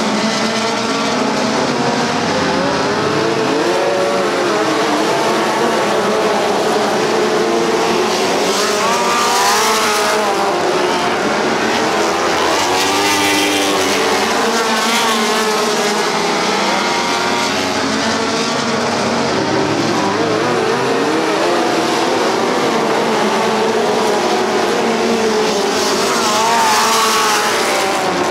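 Several midget race car engines running at racing speed. Their overlapping tones keep rising and falling as the cars accelerate out of the corners and lift into them, with louder rising sweeps as cars pass close.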